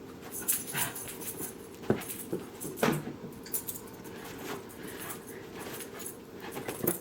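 A pet dog making small noises, with scattered soft knocks and clicks while the dog is playing with a ball.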